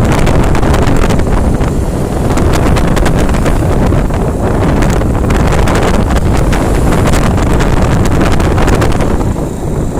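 Loud wind buffeting the microphone, a continuous rumbling, crackling rush that eases slightly near the end.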